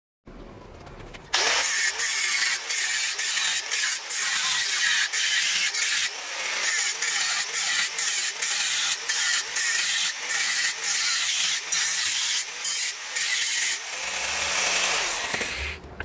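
Angle grinder grinding into the rusty steel of a trailer-hitch ball and coupler held in a vise: a loud, harsh hiss broken by many brief dips as the disc bites and eases off. Near the end the disc runs free for a second or two, then stops.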